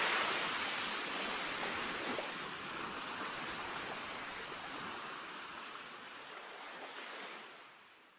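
Ocean surf breaking on the beach, a steady wash of waves that fades out gradually and ends near the end.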